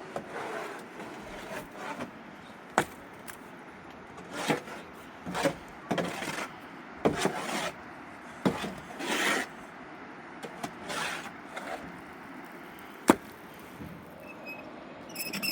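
Irregular scraping and rubbing strokes, with a few sharp knocks in between.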